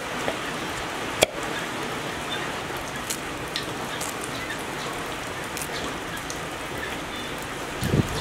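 A steady rain-like hiss with a few sharp clicks, the loudest right at the start and about a second in, as a cleaver knocks on the rim of a mortar while ingredients are scraped into it. A cluster of louder knocks starts just before the end.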